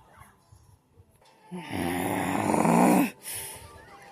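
A person's voice making one long, breathy, low-pitched groan lasting about a second and a half, starting about halfway in and stopping abruptly.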